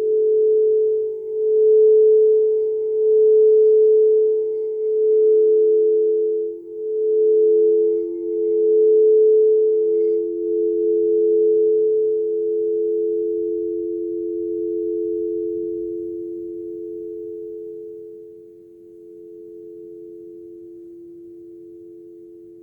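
Quartz crystal singing bowls sounding a sustained hum of a few close tones. The hum swells and dips every second or two, then slowly fades over the second half.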